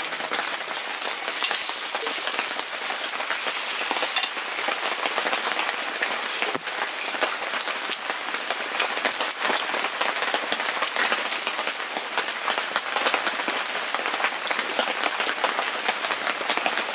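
Heavy rain pattering steadily in a dense, even crackle, with a single sharp knock about six and a half seconds in.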